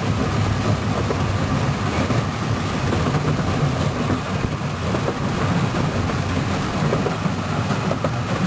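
Wulai trolley train running along its narrow-gauge track: a steady low rumble of wheels on rails with a few faint clicks.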